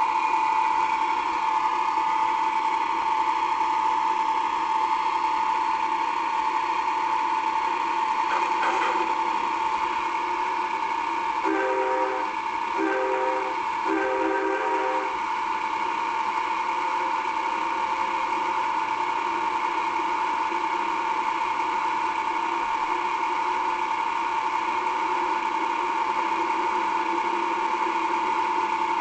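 Locomotive pushing passenger cars, running with a steady high whine. About twelve seconds in, its horn sounds three short blasts, the railroad signal for backing up.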